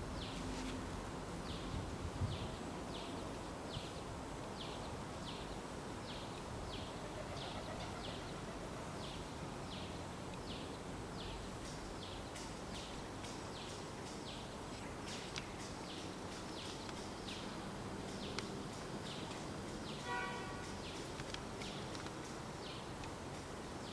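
Outdoor wildlife ambience: a short high-pitched call repeats about twice a second over a steady background hiss, with one brief pitched note about twenty seconds in.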